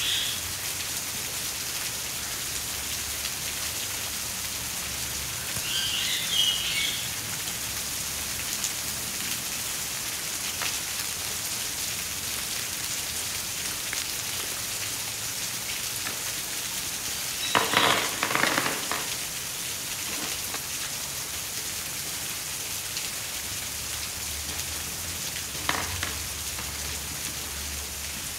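Steady rain-like hiss throughout. It is broken by a few short crinkles and rustles of plastic packaging being handled, the loudest a cluster about two-thirds of the way in, and a single click near the end.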